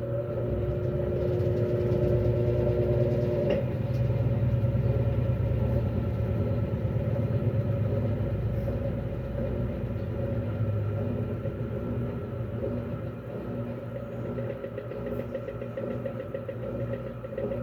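Electrolux LAC12 12 kg washing machine spinning, its motor and drum giving a steady hum and rumble. A higher steady whine cuts off about three and a half seconds in, and the sound slowly eases off in the second half.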